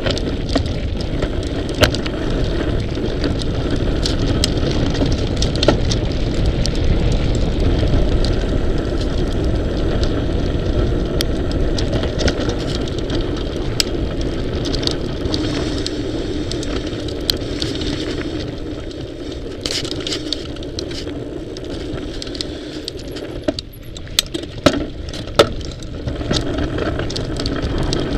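Mountain bike rolling over a rough dirt trail, heard from a camera mounted on the bike: a steady rumble of tyres and wind on the microphone, with frequent sharp clicks and rattles from the bike jolting. It eases off a little about two-thirds of the way through, then a few loud clicks follow.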